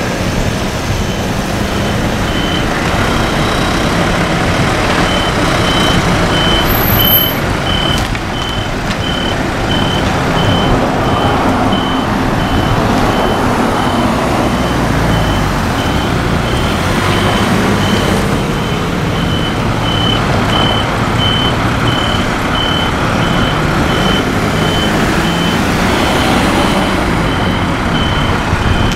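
A vehicle's reversing alarm beeping steadily, about three short high beeps every two seconds, starting a couple of seconds in, over the engines of ambulances and cars idling and creeping forward in a queue.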